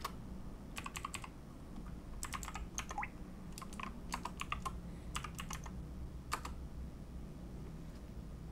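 Computer keyboard typing a terminal command: quick keystrokes in several short bursts, the last single key press about two thirds of the way through, after which the typing stops.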